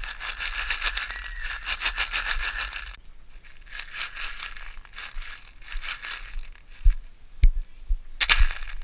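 Crinkling and rattling of a hollow plastic Easter egg being handled and pried open in gloved hands, in two stretches. A few low thumps follow near the end.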